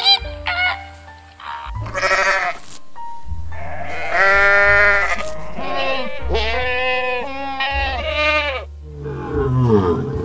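A goat bleating: several long, wavering bleats over light background music. A few short honking calls of flamingos come first, and a low falling call comes near the end.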